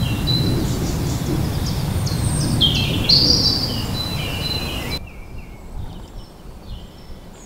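Birds chirping and singing over a steady rushing background noise. About five seconds in, the rushing noise cuts off abruptly and fainter birdsong carries on.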